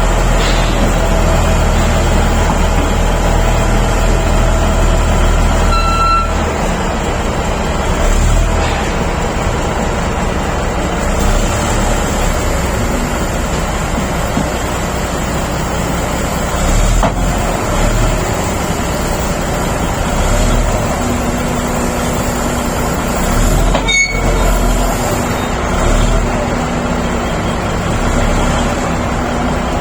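Shantui SD32 crawler bulldozer's diesel engine running, its note and load shifting now and then. There are brief high squeals about six seconds in and again late on.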